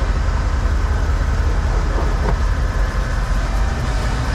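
Steady low rumble and rush of a sportfishing boat under way offshore: engine drone mixed with wind and water noise.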